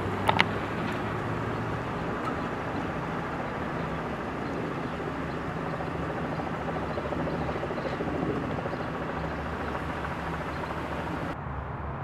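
Ambulance engine running steadily as the ambulance pulls away, with a low hum and outdoor road noise. Two sharp clicks about half a second in. No siren.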